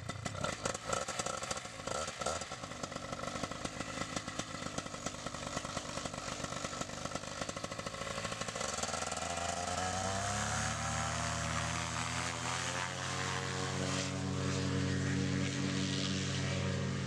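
Paramotor engine and propeller idling with a fast even putter, then throttled up about eight seconds in, the pitch rising over a few seconds to a steady full-power drone for the takeoff run.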